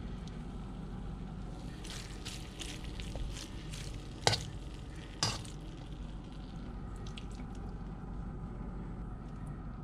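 Kitchen utensils and dishware handling food while plating stir-fry noodles: a run of light clicks, then two sharp clinks about a second apart, then a few faint ticks, over a steady low hum.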